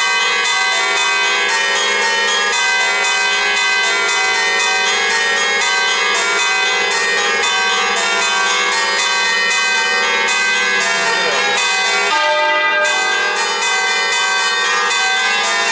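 A six-bell church peal in E-flat, mostly cast by Fratelli Barigozzi of Milan, swinging and striking continuously in the 'alla romana' style as a call to Mass. Overlapping strikes keep the bells ringing, and the mix of bell tones shifts about twelve seconds in.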